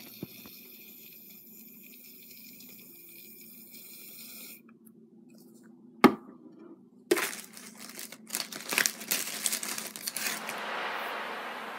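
Aerosol can of shaving foam being dispensed into glue: a sharp click, then a few seconds of crackling sputter from the nozzle, then a hiss of foam spraying out that swells and fades near the end.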